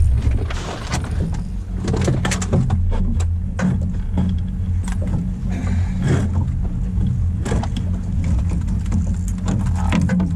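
Boat's outboard motor running steadily at low speed, a continuous low hum, with frequent clicks and knocks of fishing gear being handled on the boat.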